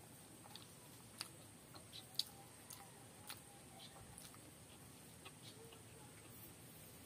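Faint, scattered clicks and light scrapes of fingers and rings working rice against a stainless steel plate, the sharpest click a little past two seconds in.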